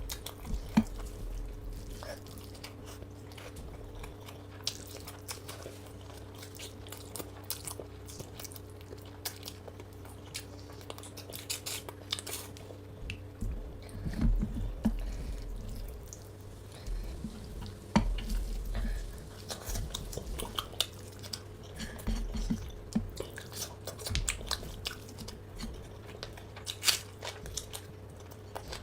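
Close-up eating sounds: a person chewing and biting food, with many small irregular clicks and crunches, over a steady low hum.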